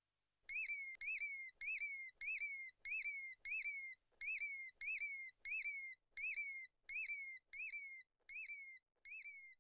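A high whistled chirp that rises and falls quickly, repeated evenly about one and a half times a second, about fifteen times, with silence between chirps.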